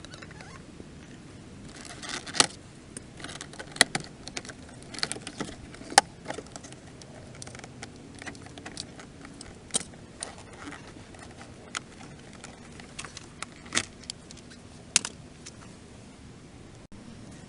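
Small metal parts and tools being handled on a workbench: scattered sharp clicks and clinks at irregular intervals, the loudest a couple of seconds in and about six seconds in.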